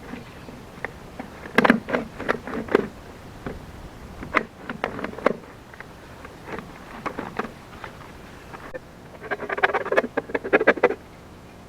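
Irregular clusters of short scraping and clicking sounds from hand work on the plastic drainage pipe, busiest about two seconds in and again near the end.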